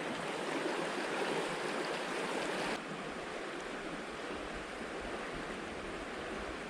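Mountain trout stream running steadily over rocks, a little quieter from about three seconds in.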